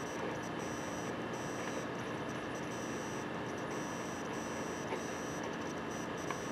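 A 230 W desktop PC power supply making an abnormal, grating buzzing whine with several steady high tones over a hum. The owner wonders whether the supply is too weak for the Core i7-2600 and Radeon HD 6570 it powers.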